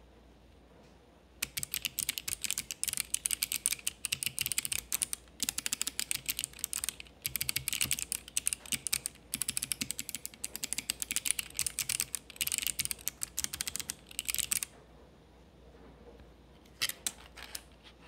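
Typing on Kailh Box Jade clicky switches in a Let's Split keyboard with translucent ABS DSA keycaps: fast, crisp, loud clicks in runs broken by a few short pauses. A few scattered clicks follow near the end.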